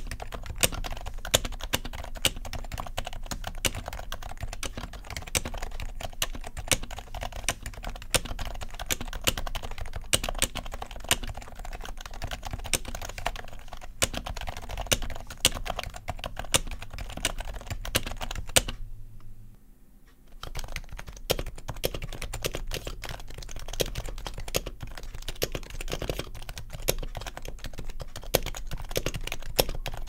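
Fast touch-typing on an HHKB Professional 2 Type-S keyboard with silenced Topre switches: a dense patter of muted keystrokes, with the unsilenced spacebar standing out louder. About two-thirds of the way in there is a pause of about a second, and the typing resumes with the keyboard set on a silencing mat.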